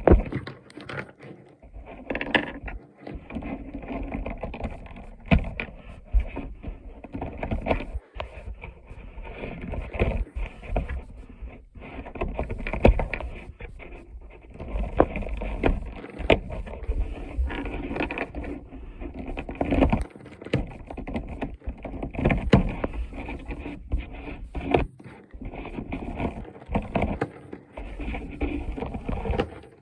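Plastic Rubik's cube pieces clicking, scraping and snapping as they are handled and pressed back into the cube, with many irregular sharp clicks.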